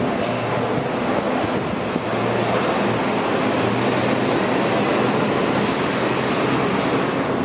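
An R143 subway train rolls slowly over the switches of an elevated line as it approaches: a steady rumble of wheels on rail with a low, even hum from the motors.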